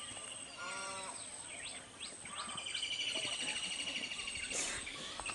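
Outdoor animal ambience: a short bleat-like call about a second in, scattered chirping bird calls, and a steady pulsing high trill from about two and a half to four and a half seconds in.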